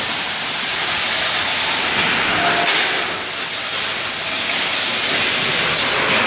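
A machine running steadily, giving a loud, even hiss with no distinct beat or tone.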